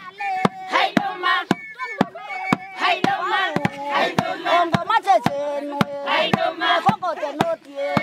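A group of voices singing a chant with a hand drum beating steadily about twice a second.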